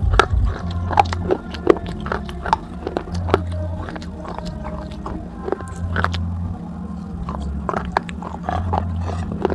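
Crunching and chewing of broken pieces of a baked clay pot: many sharp, irregular cracks as the brittle shards are bitten and ground between the teeth.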